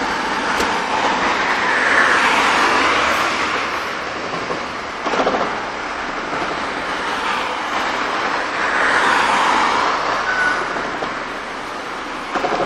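Vehicles passing along the street, two swells of tyre and engine noise that rise and fade, with a short thump about five seconds in and another near the end.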